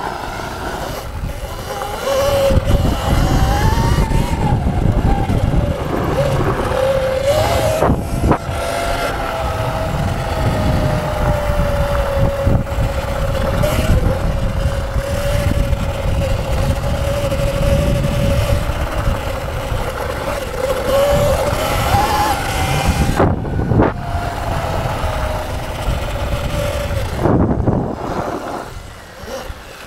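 Electric dirt bike motor whining, its pitch gliding up and down with the throttle and holding steady for long stretches, over a constant low rumble.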